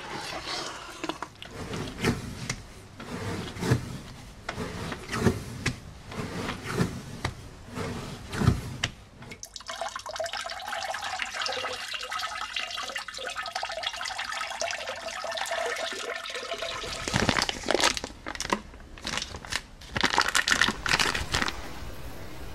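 Wet red clay slurry scooped and slapped into a cloth-lined bucket, a run of irregular wet squelches. About ten seconds in, a steady stream of glaze is poured from a jug over a ceramic pot and splashes into the bucket below for about seven seconds. Near the end, water soaking into dry clay fizzes and crackles with tiny bursting bubbles.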